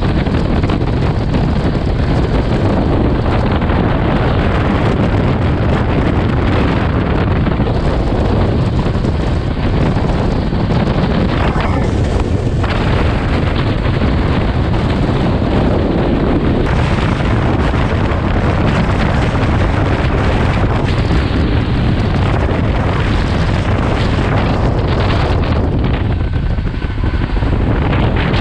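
Heavy wind rushing over a microphone held outside a fast-moving Rajdhani Express train, with the train's steady running noise underneath.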